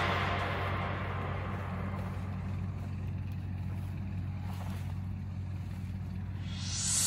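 A quiet passage of electronic background music: a low, steady bass drone left after the beat drops out, then a rising whoosh near the end that leads back into the beat.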